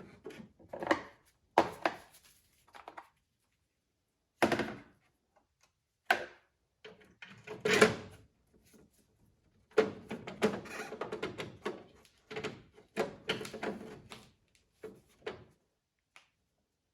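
A string of separate knocks and clunks, with short rattles in between, from car parts being handled and fitted during a turn-signal housing swap. There are silent gaps between the bursts.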